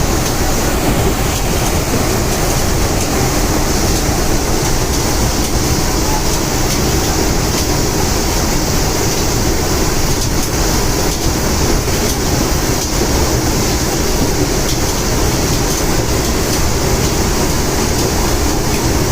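Loud, steady roar of an aircraft's engines and rushing air, unbroken throughout.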